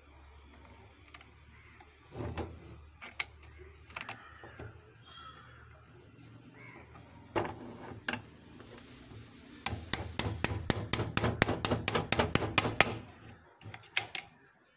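Metal crossbow trigger parts and a bolt being fitted into a wooden stock by hand: scattered knocks and clicks, then a rapid run of sharp taps, about eight a second for some three seconds, in the second half.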